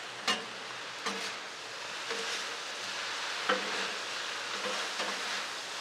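Sauced noodles sizzling on the steel top of a Blackstone flat-top griddle while two metal spatulas toss them, with several clicks and scrapes of spatula against steel.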